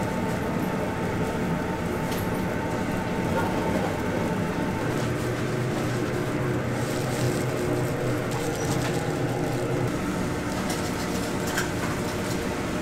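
Steady sizzling and hiss at a takoyaki stall's griddle, under a low steady hum, with a few faint clicks.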